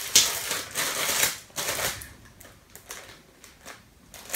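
Gift-wrapping paper tearing and crinkling as a present is unwrapped, in quick rustling bursts for about the first second and a half, then fainter, scattered crackles.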